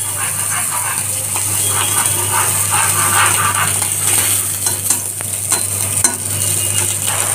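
Fish pieces sizzling in hot mustard oil in an iron kadai, with a flat metal spatula scraping and clicking against the pan as the fish are pressed and moved.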